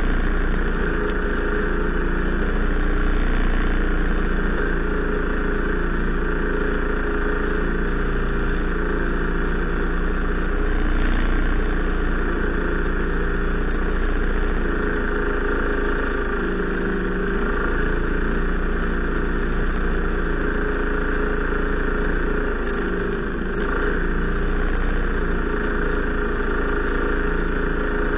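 A small engine running steadily at an even speed, with hardly any change in pitch or loudness.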